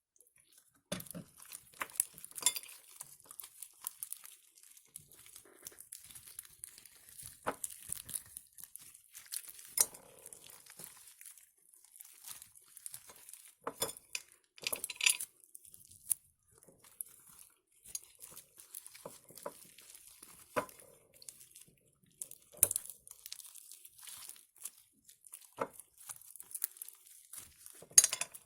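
Homemade slime being worked by hand, with irregular sticky crackles, clicks and small pops throughout.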